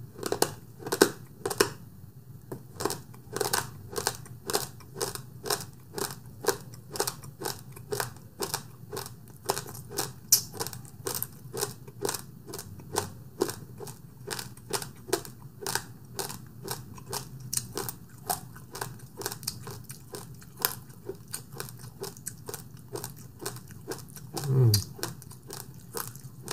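Close-miked crunchy chewing of basmati rice with sweetened condensed milk, a steady run of crisp crunches at about two to three a second, with a short hummed 'mm' near the end.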